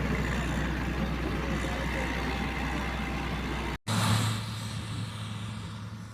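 Heavy-machinery engines running steadily under work. A little past halfway the sound cuts off abruptly and gives way to another engine's steady hum, which starts loud and fades.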